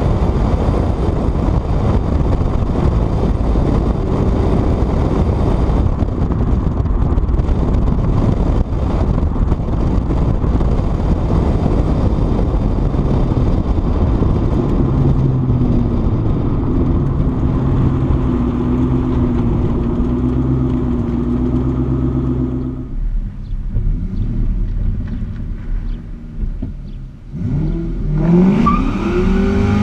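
Ford Mustang SVT Cobra's V8 driving under way with heavy wind and road noise on the outside-mounted microphone, holding a steady cruise. About three-quarters of the way through it eases off and quietens, then near the end it revs up hard with a rising engine pitch as the car accelerates.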